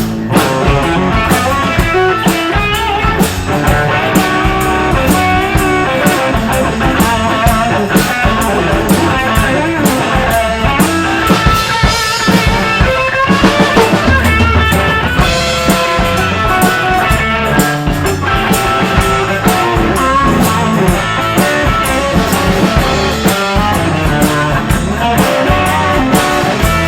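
Rock band playing an instrumental break: a guitar lead over bass and drum kit, with a steady beat.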